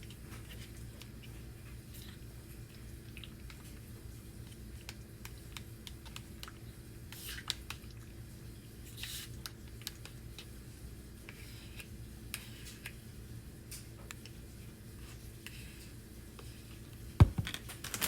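Faint, scattered light clicks and scrapes of food and packaging being handled, over a steady low hum, with one sharp thump near the end.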